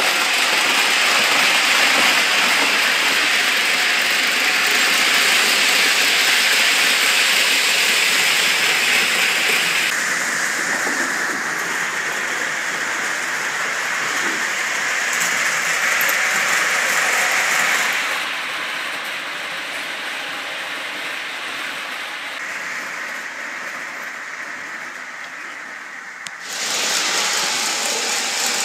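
O gauge model trains running at high speed around the layout track: a steady whir and rattle of motors and wheels on the rails. It grows quieter for a stretch past the middle, then jumps back up sharply near the end as a train comes close again.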